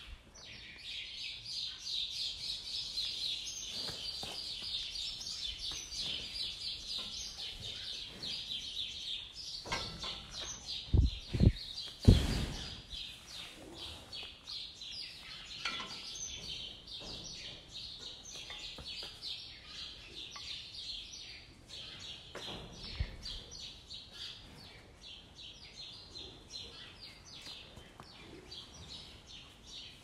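Many small birds chirping continuously, a dense chatter of quick high chirps. About eleven seconds in come three loud low thumps close together, the loudest sounds, and a softer one about twenty-three seconds in.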